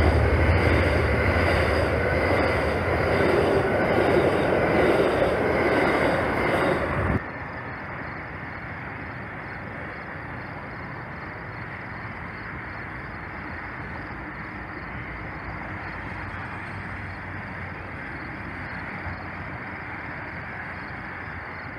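Amtrak bi-level passenger cars rolling past at speed, a loud, even rush of wheels on rail. About seven seconds in it cuts off abruptly, leaving a steady, much quieter rumble as the train recedes into the distance.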